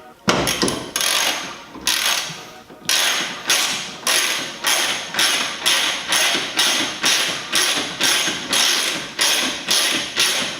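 Ratchet wrench worked in short, even strokes, about two a second, each back-swing giving a quick rattle of clicks, as the 17 mm steering rack mounting bolts are run in.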